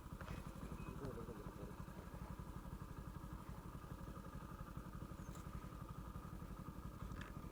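A 100 cc motorcycle's single-cylinder engine idling with a faint, even, low putter.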